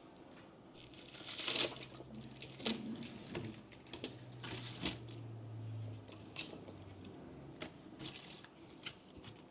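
Kitchen handling sounds: scattered light clicks and knocks, with a rustle of crinkling packaging about a second and a half in and a low hum for a few seconds in the middle.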